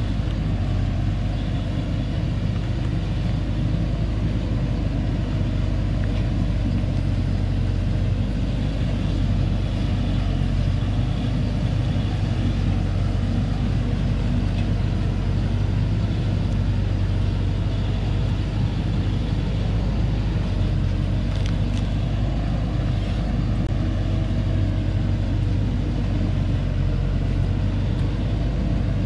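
Vehicle engine running steadily with a low hum as a truck loaded with acacia logs crawls up a rocky dirt track.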